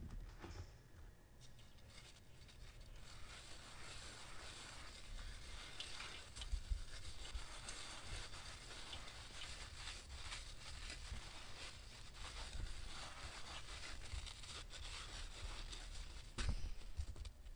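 Hands squeezing and crumbling a dry sand-and-cement block: a steady gritty crunching and crackling of grit, starting softer and building after a few seconds. There is a louder crunch about six and a half seconds in and another near the end.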